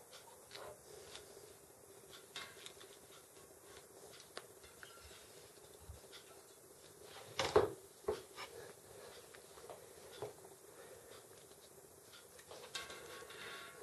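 Small metallic clicks and taps from hands handling a Shimano Nexus hub's cassette joint and shift cable, with one louder knock about halfway through and a short rattling run of clicks near the end.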